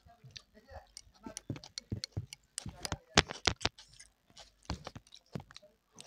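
Close-up eating sounds of a mouthful of soft rice mixed with mashed vegetable bhorta: irregular wet chewing clicks and lip smacks, the loudest a little past halfway.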